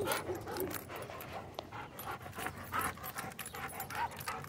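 A German Shorthaired Pointer panting in short, irregular breaths while tugging on a rope toy, with scattered small scuffs and clicks.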